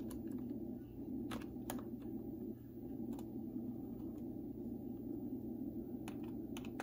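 A handful of light, separate clicks and taps from a small screwdriver and laptop parts being handled while an M.2 SSD is fitted into an opened laptop, over a steady low hum.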